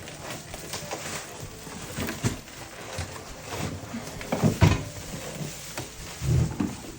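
Background music with irregular knocks and handling noises, loudest a little past the middle.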